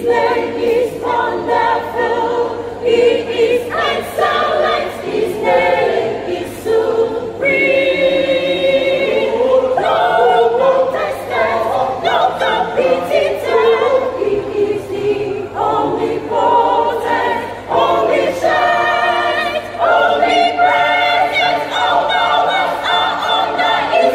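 A church choir of about 27 voices singing a gospel choice piece in parts, with held notes that waver in vibrato.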